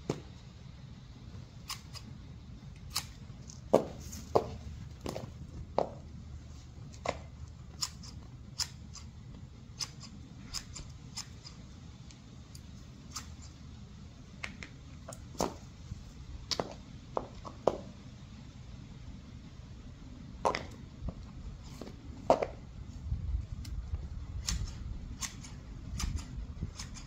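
Large hand-held garden shears snipping bush twigs: sharp, irregular snips, roughly one every second or two. A low rumble builds near the end.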